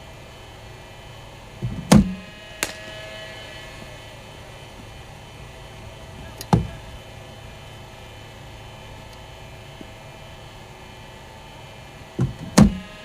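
Cricket balls fired from a bowling machine, giving a few sharp knocks of ball on bat, pitch or net: a pair about two seconds in, one in the middle and another pair near the end. Under them runs a steady hum.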